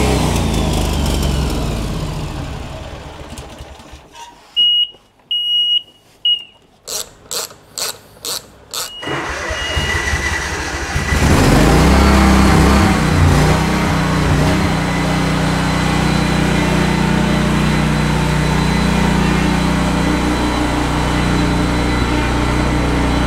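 John Deere zero-turn mower engine running while being brought up to temperature on an epoxy-patched radiator. The engine noise dies away over the first few seconds. A quieter stretch follows with three short high beeps and a quick series of sharp clicks. About eleven seconds in, the engine comes back in, running loudly and steadily as the mower drives off.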